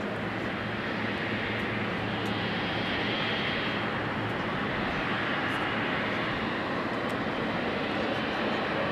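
Boeing 777-300ER's twin GE90-115B turbofans running at taxi power as the airliner turns onto the runway: a steady jet rumble with a thin high whine, slowly growing louder.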